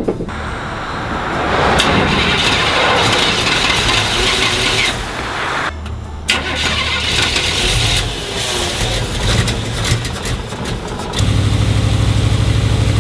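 Cold carbureted engine of an old square-body Chevrolet pickup being cranked over by its starter, in more than one attempt. About eleven seconds in it catches and runs with a steady, even pulse.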